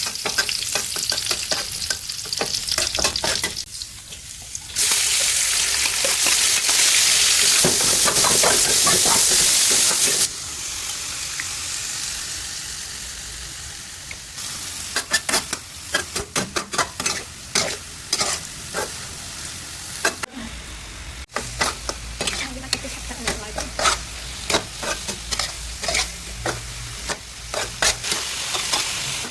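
Pork and vegetables stir-frying in hot oil, sizzling, with a utensil repeatedly clicking and scraping against the pan as it stirs. About five seconds in, the sizzle turns loud and steady for about five seconds, then settles back to a softer sizzle under the stirring.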